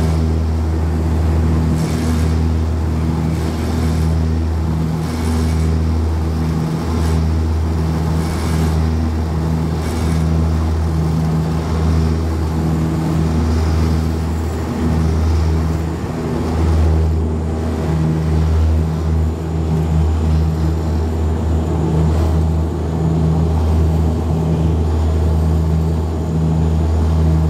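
De Havilland Canada Dash 8-100's twin turboprop engines and propellers at takeoff power, heard from the cabin beside the propeller: a loud, steady propeller drone with a pulsing beat, through the takeoff roll and liftoff into the climb.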